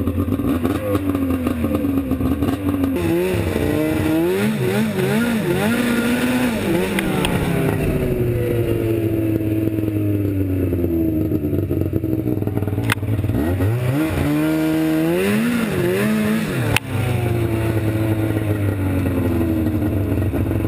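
1997 Polaris RMK 700 snowmobile's two-stroke triple engine running under way. It revs up and drops back several times as the sled is ridden to test its freshly repaired brakes. Near the end there is one sharp click.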